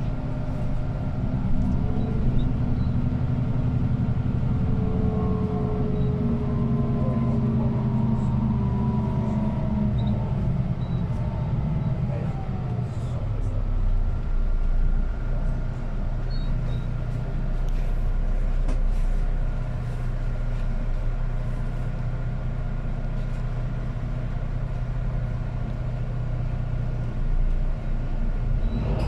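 City bus engine and drivetrain heard from inside the cabin while underway: a whine climbs in pitch as the bus accelerates and fades about twelve seconds in, then the bus runs on steadily.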